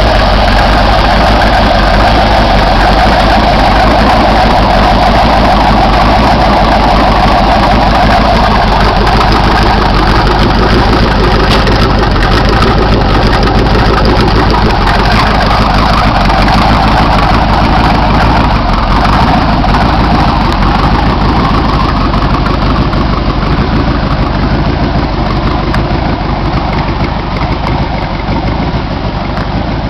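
Small-block Chevy V8 of 300-plus horsepower, swapped into a 1984 Pontiac Fiero, idling steadily through its exhaust. It grows a little quieter over the last several seconds.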